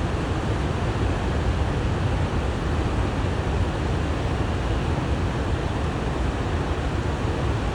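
Horseshoe Falls, a large waterfall, giving a steady, even rush of falling water that is strongest in the low end.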